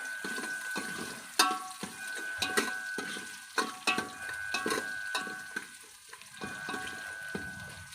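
Food frying and sizzling in a cooking pot while a metal ladle stirs it, knocking sharply against the pot several times.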